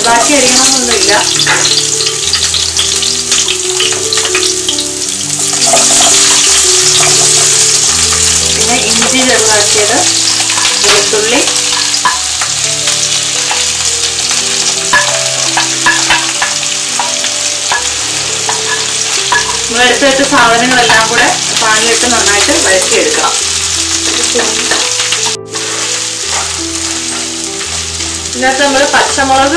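Chopped onions sizzling loudly as they fry in hot oil in a nonstick pan, with a wooden spatula stirring and scraping through them; garlic, curry leaves and dried red chillies go into the pan and keep frying.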